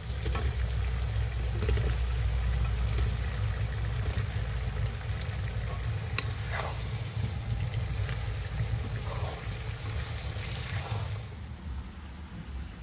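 Carrots and onions frying in a cast-iron kazan, a steady sizzle over a low rumble, as potato halves are tipped in and stirred with a wooden spatula, with a few short knocks against the pot in the middle. The sizzle swells briefly near the end.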